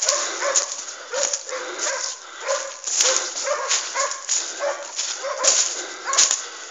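Hunting hounds giving tongue in a steady string of short yelping barks, about two a second: the cry of scent hounds running a wild boar. A hiss of dry leaves rustling runs underneath.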